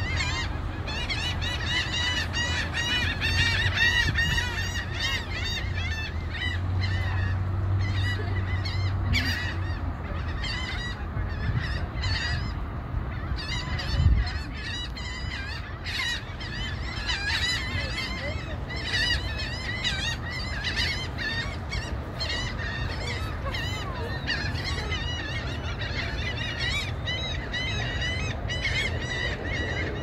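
A noisy flock of water birds calling over and over in short, overlapping calls, thinning out briefly about a third of the way in before picking up again. A low rumble runs underneath, and a single thump comes about halfway through.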